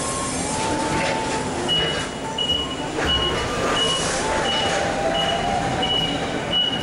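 Nissan forklift's warning beeper sounding high, evenly spaced beeps, about one and a half a second, starting about two seconds in, over loud steady machinery noise as the forklift travels through the trailer.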